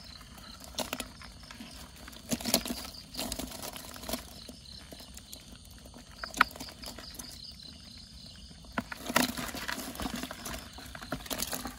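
Irregular clicks, knocks and rustles from live catch in a plastic bucket: climbing perch and freshwater snails shifting and knocking against the plastic and nylon netting as a hand sorts through them. Insects chirp steadily in the background.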